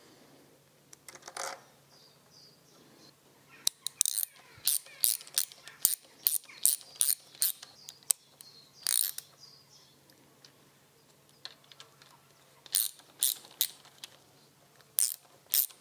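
Hand ratchet clicking in several short runs, with light metallic clinks of the socket, as a connecting-rod cap bolt is snugged down gently, not yet to final torque.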